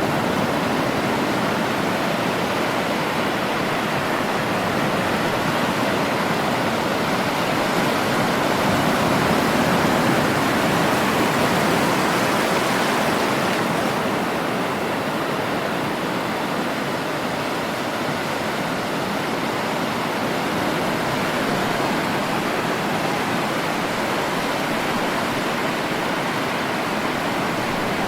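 Sea surf: a steady, continuous wash of breaking waves, swelling somewhat louder about ten seconds in and easing off slightly after about fourteen seconds.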